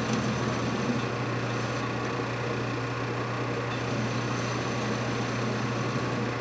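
Metal lathe running with a steady motor hum while the cutting tool takes a light cut across the workpiece.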